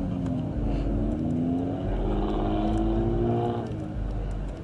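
A car engine revving as the car drives past close by, its pitch climbing for a few seconds and dropping off sharply near the end, over a steady low rumble.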